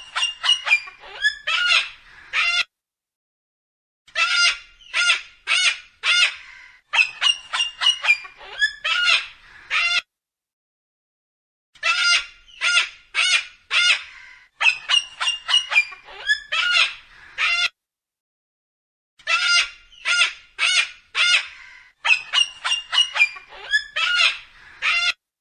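Cockatoo screeching: loud, harsh calls repeated about two a second, in bouts of several seconds broken by three short silences.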